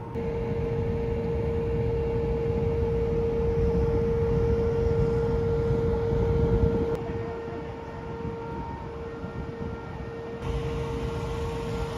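A steady droning hum at one pitch, over low rumbling wind noise on the microphone; the hum drops in level about seven seconds in.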